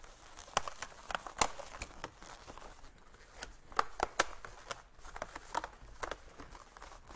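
Inflated latex balloons squeaking and rubbing against each other under the hands, as a cluster of small balloons is worked onto a twist on top of an 18-inch balloon. The squeaks come short and scattered, with a quick run of them about four seconds in.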